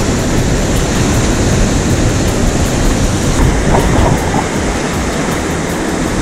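Heavy winter swell breaking on a rocky shore: a loud, continuous roar of surf, with wind on the microphone.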